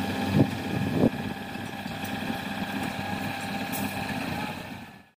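Diesel engine of a Kato SR250SP rough-terrain crane idling with a steady hum. Two short loud knocks come in the first second or so, and the sound fades out near the end.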